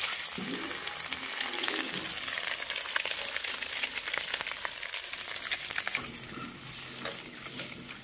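Peeled boiled eggs frying in hot oil in an aluminium kadai: the oil sizzles steadily with a dense patter of small pops.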